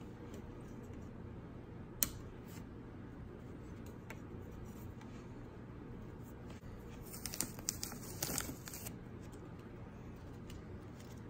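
Hands handling a printed circuit board on a work mat: one sharp click about two seconds in, then a brief cluster of scratchy rustling and tapping a few seconds later as the board is moved and turned over. A steady low hum lies underneath.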